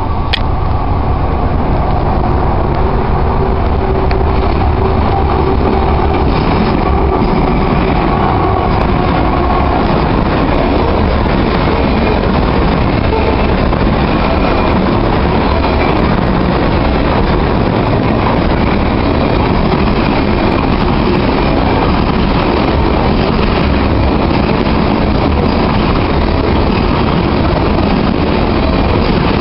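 Canadian Pacific freight train passing close by: the diesel locomotives go past with a steady pitched hum in roughly the first ten seconds, then a string of covered grain hopper cars rolls by with steady wheel-on-rail rumble.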